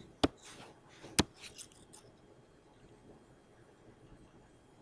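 Two sharp clicks about a second apart, each followed by faint scratching, as dots are marked with a stylus on a hand-written digital worksheet; quiet room tone after.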